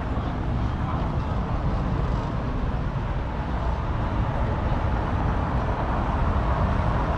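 Street traffic: car tyres running on a cobbled road with engine noise. The noise grows louder toward the end as a car approaches.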